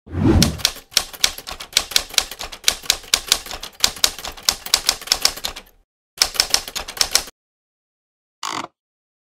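Typing on a computer keyboard: a low thump at the start, then about six seconds of quick keystrokes, a short pause, another brief run of keys, and a single short noise near the end.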